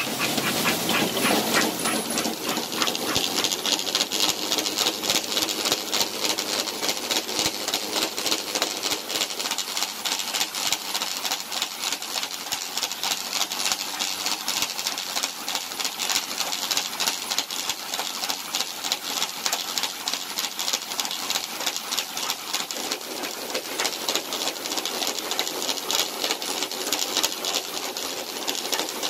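Dog mill running with a dog galloping on its belt: a fast, steady clatter of the belt and rollers under the paw strikes.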